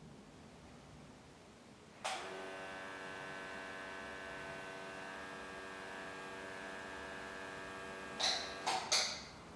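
Small eyelash-extension air compressor switched on about two seconds in, running with a steady electric hum. Near the end, a few short puffs of air hiss from its blower nozzle.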